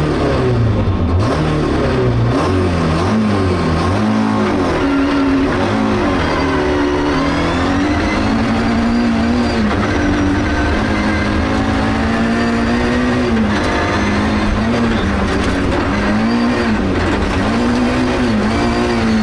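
Rally car engine heard from inside the cabin at full stage pace on gravel. The revs climb and drop again and again through gear changes and corners, over a constant rush of tyre and gravel noise.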